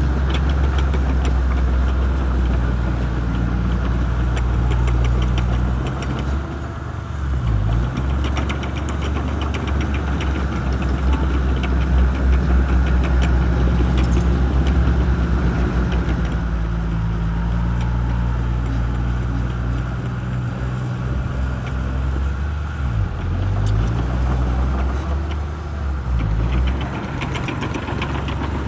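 Shantui bulldozer's diesel engine running hard while pushing, its speed dipping briefly and recovering twice, about seven seconds in and again past twenty seconds, over a fast steady clatter.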